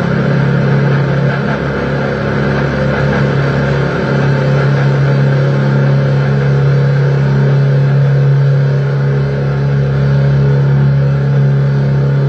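Experimental noise piece: a loud, steady low drone holding two low tones, with a dense, grainy hiss layered over it.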